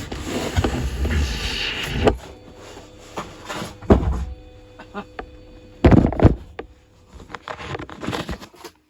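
Cardboard box and packing being handled as a portable power station is unpacked: scraping and rustling for the first two seconds, then a few heavy thumps, the loudest about four and six seconds in, with scattered light knocks between.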